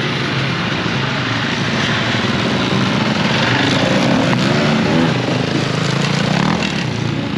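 Off-road motorcycle engines running, with some rise and fall in pitch.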